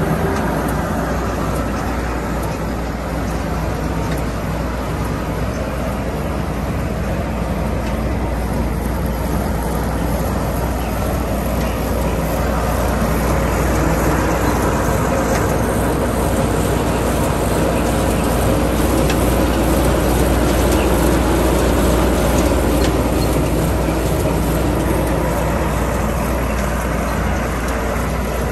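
A tractor and an Oxbo BH100 bean harvester hitched to it run steadily, giving a continuous loud machinery noise over a low hum. The noise grows a little louder about halfway through.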